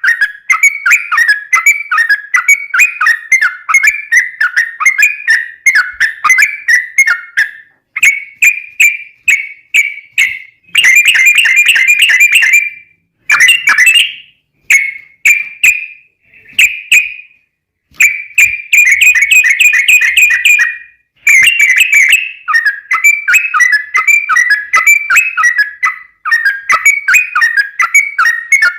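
Trucukan (yellow-vented bulbul) singing a long, fast chattering song of short whistled notes, with two denser rattling trills partway through, the "ropel panjang" used as a lure to get other trucuk to answer.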